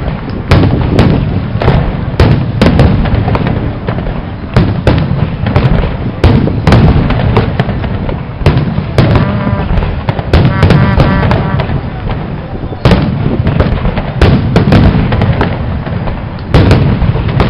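Fireworks display: aerial shells bursting in rapid, overlapping booms, often more than one a second, over a continuous low rumble.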